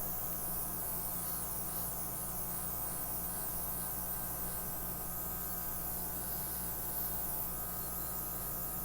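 Small airbrush compressor running steadily, a low motor hum under a constant hiss of air, as paint is blown out into flower petals.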